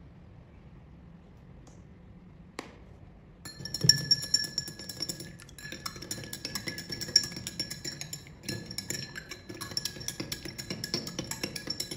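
A spoon stirring a drink in a drinking glass, clinking rapidly against the sides so the glass rings. The stirring starts about three and a half seconds in, after a single click.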